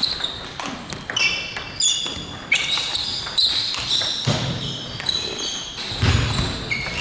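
Table tennis ball clicking off the paddles and bouncing on the table in quick hits, with rubber-soled sports shoes squeaking on the hall floor between the strokes.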